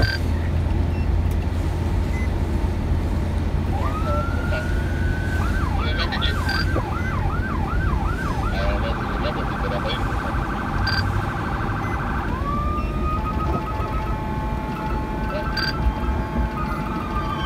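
Police car siren winding up about four seconds in, running through a quick yelp, switching to a fast warble, then winding down after about twelve seconds, with a fainter siren tone near the end. Under it runs the steady low rumble of the car driving.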